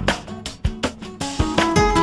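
Background music with plucked guitar notes over a low bass line.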